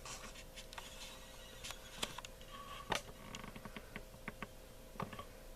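Faint room tone with a steady low hum, broken by scattered small clicks and taps, the sharpest about two and three seconds in.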